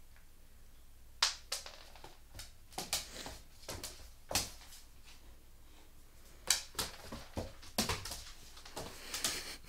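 An American Staffordshire terrier puppy eating and moving about on a laminate floor: irregular sharp clicks and crunches, starting about a second in.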